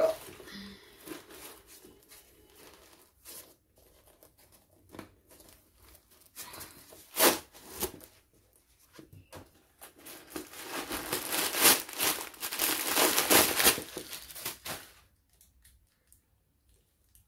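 Paper stuffing being pulled out of a new handbag and crumpled: scattered rustles, one loud crinkle about seven seconds in, then several seconds of loud, continuous crumpling.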